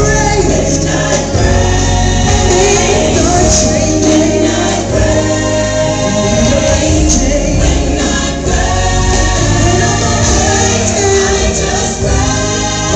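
Gospel music: a choir singing over a band with a heavy, steady bass line.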